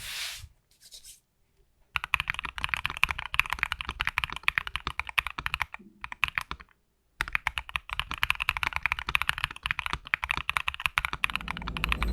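Mechanical keyboard with Wuque Studio WS Quartz linear switches being typed on fast, a dense run of keystroke clacks that pauses briefly twice. The switches have polycarbonate top and bottom housings, nylon stems and 22 mm two-stage springs, and give a deep, solid sound.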